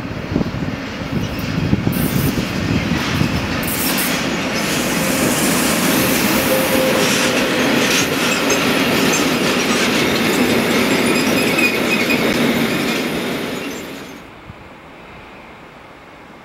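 A long freight train of covered sliding-wall wagons passes close by: a steady rumble and clatter of wheels on the rails, with a faint squeal. The noise builds over the first few seconds and drops away suddenly about fourteen seconds in, leaving a low steady background.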